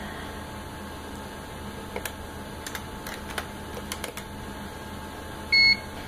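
Keys clicking on an ultrasound machine's keyboard as an image label is typed, followed by one short electronic beep from the machine, the loudest sound.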